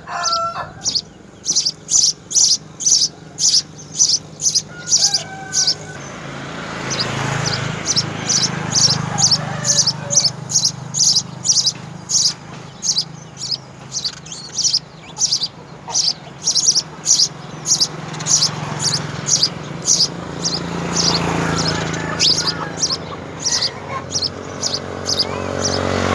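A sparrow chirping over and over, short high chirps about twice a second, over a low background rumble that swells twice.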